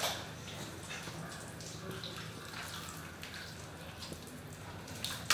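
Wet flood silt being scooped and scraped off a floor by hand, with small squelches, splashes and scrapes, and a sharp knock near the end.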